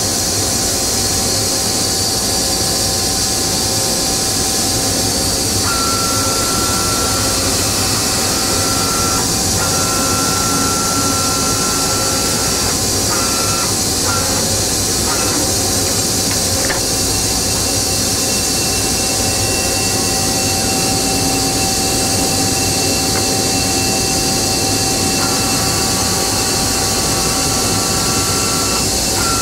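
Agie Agietron Advance CNC die-sinking EDM machine running under power: a steady hum and hiss, with a higher whine that cuts in and out several times, about six seconds in, again around ten, thirteen and fifteen seconds, and near the end.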